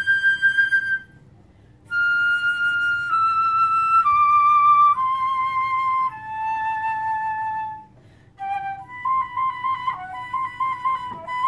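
A solo recorder holds a high note. After a short break it plays a slow line of five held notes, each about a second long, stepping down in pitch. After another short pause it breaks into a fast run of quick notes leaping up and down.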